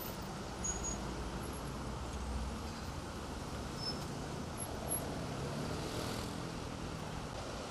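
Steady road traffic noise from a busy multi-lane street, cars and trucks going by, swelling briefly about six seconds in as a vehicle passes.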